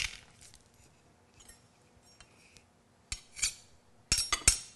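Metal garlic press squeezing a garlic clove over a glass bowl, mostly quiet at first. From about three seconds in come a few sharp metallic clicks and a short scrape as a knife blade scrapes and taps the pressed garlic off the press.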